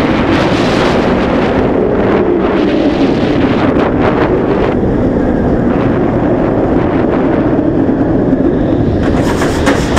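Steady wind buffeting the microphone over the rumble of a Bolliger & Mabillard stand-up roller coaster train running fast along its steel track.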